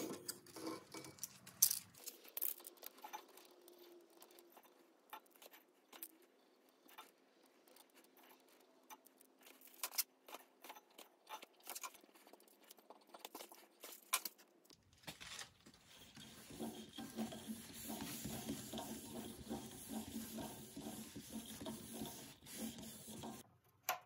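Faint, scattered clicks and handling noises from a hand on the finished wooden knob. About 15 seconds in, a faint steady rustle takes over.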